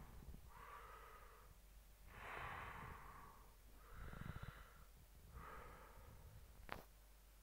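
Quiet, close breathing, in and out at a slow steady pace, one breath about every second and a half, over a faint steady low hum. A single sharp click comes near the end.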